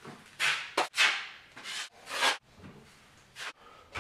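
Drywall taping knife spreading and scraping quick-setting joint compound across a wall in a skim coat: about six short scraping strokes, some brief and sharp, some longer and trailing off.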